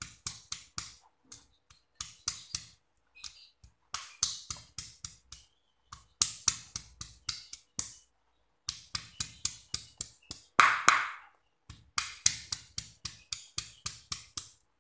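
Stone pestle pounding turmeric, garlic and chillies in a granite mortar: rapid sharp knocks, about five a second, in runs broken by short pauses, with the loudest stroke about two-thirds of the way in.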